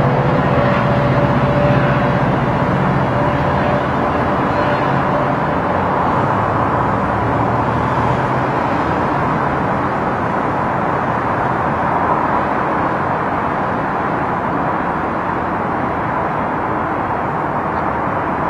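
GO Transit MP40PH-3C diesel locomotive pulling away, the low drone of its engine fading over the first few seconds, then a steady noise of the bilevel passenger coaches rolling past on the rails.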